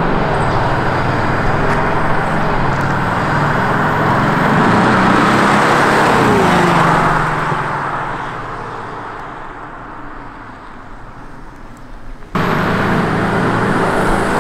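BMW 730d (F01) 3-litre turbodiesel with a retrofitted active sound generator producing a deep V8-style exhaust note as the car drives past. The note swells as it approaches, drops in pitch as it passes and fades away, then comes back loud about twelve seconds in.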